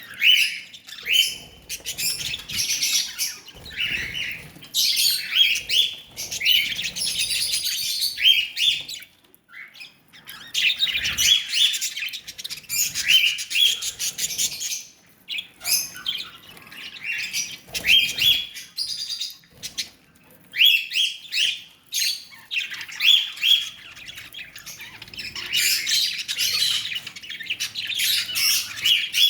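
Pet lovebirds chirping and chattering: many short high chirps, with stretches of dense, rapid chatter.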